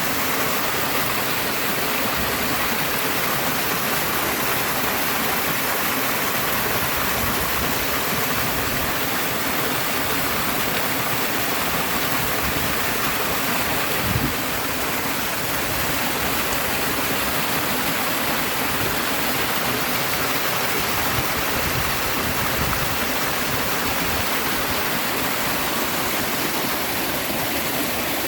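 Rushing water of a river and waterfall, a steady, even roar with no let-up, broken only by one brief low thud about halfway through.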